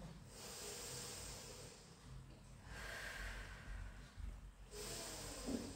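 A person breathing audibly: about three long, hissing breaths in and out.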